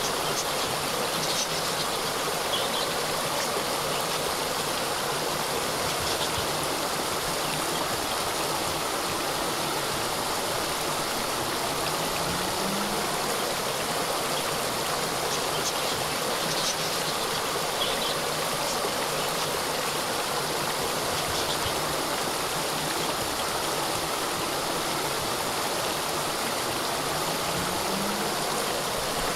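Small waterfall cascading steadily, an even rush of falling water with a few faint, short high chirps over it.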